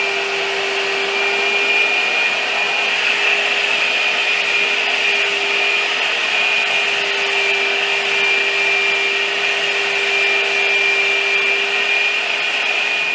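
A power tool's motor running steadily with a constant high whine over a rushing noise.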